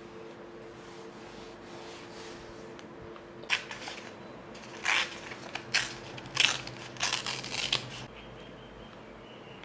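Paper being handled and cut during journaling: a run of short, crisp snips and rustles, about a dozen in a few seconds, starting a few seconds in and stopping before the end.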